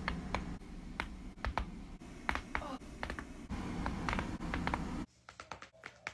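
Neck joints cracking under manual adjustment: a run of sharp pops and clicks, several in quick clusters, over a low hum. The hum drops away about five seconds in and a few more pops follow.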